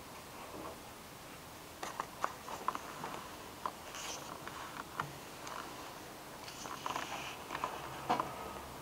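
A pen marking the pages of a book, with paper rustling: small irregular clicks and scratches that start about two seconds in and come on and off.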